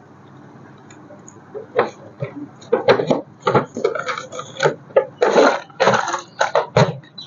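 Irregular clicks, knocks and rustles of things being handled, starting about two seconds in and coming thick and fast until near the end.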